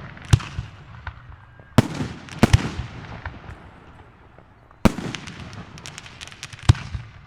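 Aerial fireworks bursting: about six sharp booms, spaced roughly one to two seconds apart, two of them in quick succession about two and a half seconds in. Each is followed by a fading crackle and echo.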